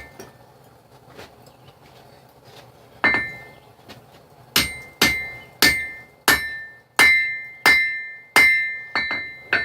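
Forging hammer striking a knife blank on an anvil, with the anvil ringing after each blow. One blow comes about three seconds in, then a steady run of about nine blows, a little over one a second, while the tang is drawn out.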